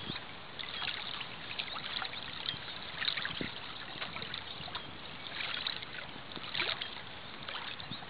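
Small lake waves lapping and splashing at the water's edge right at the microphone, a steady wash broken by bunches of little splashes and trickles, the loudest about three seconds in and twice more after the middle.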